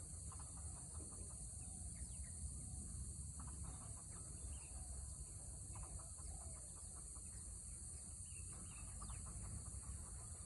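Faint bird calls, short clusters of notes every second or two, over a steady high hiss and low rumble.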